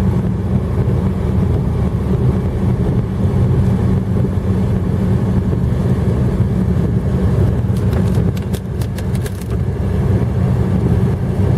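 Loud, steady rumble of a car driving, with a quick run of sharp clicks about eight seconds in.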